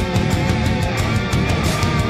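Loud rock music, heavy-metal style, with a fast, steady drum beat.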